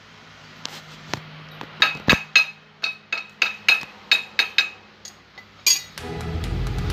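Hammer tapping on metal: about fifteen sharp, ringing strikes, fastest in the middle at three to four a second, as a motorcycle steering-head (knuckle) bearing is driven into place. Background music starts about six seconds in.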